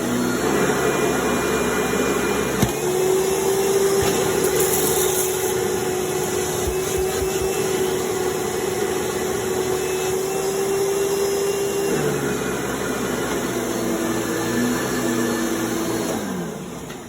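Hoover WidePath Elite upright vacuum cleaner running steadily. Its motor pitch steps up a little about three seconds in, with a click, and drops back about twelve seconds in. Near the end it winds down, falling in pitch and loudness.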